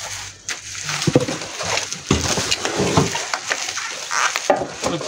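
Black plastic bubble wrap crinkling and rustling, with cardboard scraping, as a heavy wrapped 18-inch speaker is lifted out of its cardboard box; the crackling is irregular.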